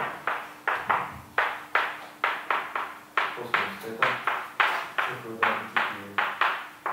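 Chalk writing on a blackboard: a quick, uneven run of sharp tapping and scratching strokes, about two or three a second, as an equation is written out.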